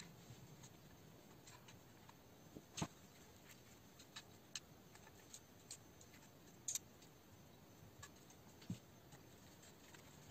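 Faint, scattered clicks and taps of plastic suspension parts and an aluminium chassis plate being handled by gloved hands, over quiet room tone; the loudest click comes about three seconds in.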